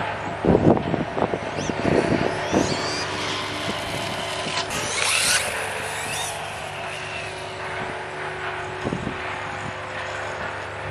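Losi Promoto-MX RC dirt bike's electric motor whining, its pitch rising and falling as the bike accelerates and turns on asphalt, with a short hiss about five seconds in. Wind buffets the microphone in the first couple of seconds.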